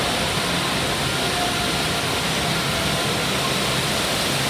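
Steady, even roar of an indoor water park, mostly rushing and falling water.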